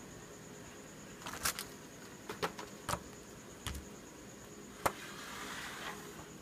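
Plastic Play-Doh cans knocking against each other and being set down on a wooden table as they are stacked: about five or six separate light knocks, then a soft scrape around five seconds in.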